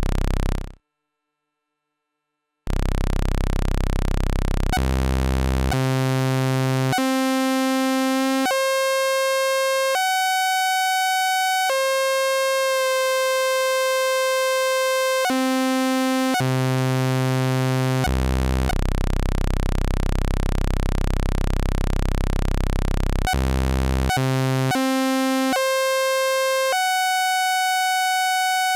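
Roland System-500 analogue VCO holding one steady buzzy tone rich in overtones that jumps in steps as its octave knob is turned, first up, then down to a deep bass note, then back up. The octave knob turns further than it mechanically should, which puts the VCO out of tuning.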